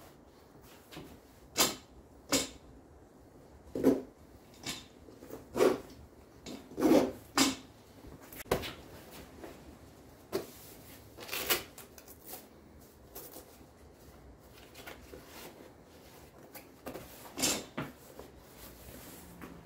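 Chainsaw chaps being put on and fastened: short, scattered rustles of the stiff multi-layer fabric and clicks of the waist belt and leg straps, about a dozen at irregular intervals.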